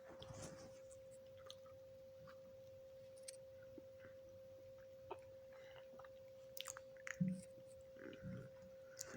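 A person chewing a banana: soft, scattered mouth clicks and wet smacks, a little louder about seven and eight seconds in, over a faint steady hum.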